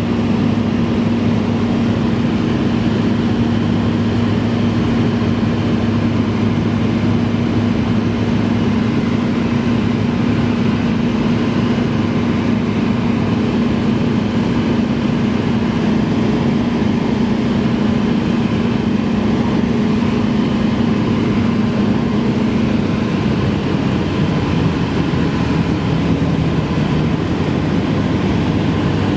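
Cessna 172's single piston engine and propeller running steadily in cruise, a constant drone heard from inside the cabin. The engine note shifts slightly lower in the last few seconds.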